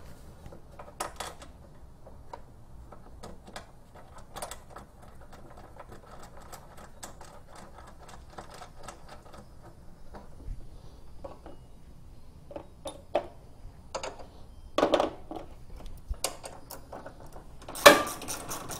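Ratchet wrench clicking in quick runs as bolts are tightened, with a few louder metal clatters, the loudest near the end.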